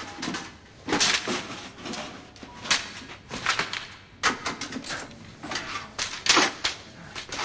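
A run of irregular knocks, bumps and rustles, a short burst every half second or so.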